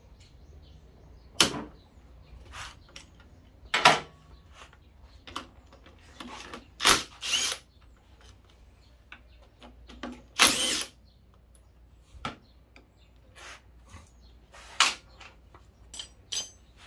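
Cordless power tool spinning a socket on the front axle nut of a Suzuki Address 125 scooter to loosen it for wheel removal. It runs in several short bursts, the longest about ten seconds in.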